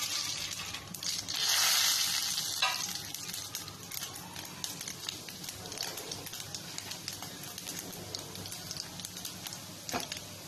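Mustard seeds, urad dal and chana dal sizzling in hot sesame oil with red chillies in a steel kadai: the tempering (tadka) for lemon idiyappam. A louder burst of sizzling comes about a second in, then the frying settles to a steady crackle with many small pops.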